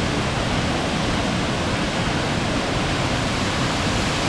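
Waterfall cascading, a loud steady rush of water that cuts off suddenly at the end.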